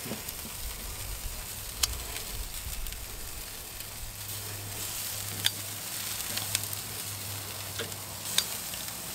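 Chicken leg quarters sizzling steadily on a grill grate over hot charcoal. A few sharp metallic clicks come from steel tongs against the grate as the pieces are flipped.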